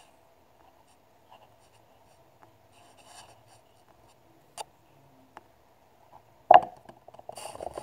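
A few faint clicks, then a single sharp knock about two-thirds of the way through, followed by a short scratchy rubbing near the end, over a faint steady hum.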